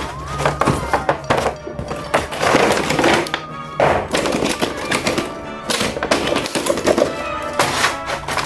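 Background music with repeated knocks and clatter throughout, typical of plastic toy packaging and action figures being handled.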